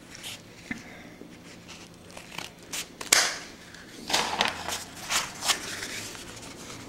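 Crepe paper rustling and crinkling as strips are handled, with scattered sharp crackles, the loudest about three seconds in and several more between four and five and a half seconds.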